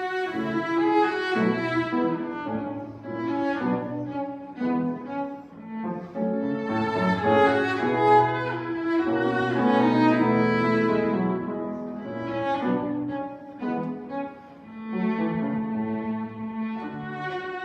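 Bowed cello music: cello playing a slow piece of held notes that change every second or so.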